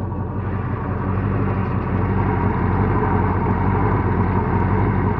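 Freshly overhauled OMC stringer sterndrive's inboard engine idling steadily, warmed up after about half an hour of running, with no obvious knocks.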